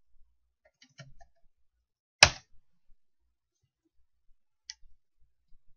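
A single sharp click on a computer about two seconds in, with a few faint clicks before and after it, as a spreadsheet formula is keyed in and entered.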